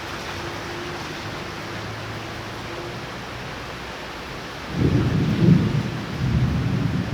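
Steady heavy rain, then about three-quarters of the way through a loud rolling rumble of thunder breaks in suddenly and keeps rumbling.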